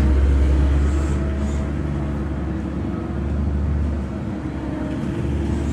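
Steady engine-like drone: a strong low hum with a few fainter steady tones above it.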